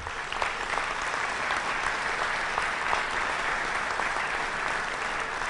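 Audience applause, swelling in at the start and then holding steady.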